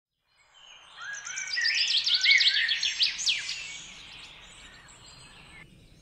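Birds chirping: a dense run of quick, high chirps and whistles that swells in the first half and then fades away.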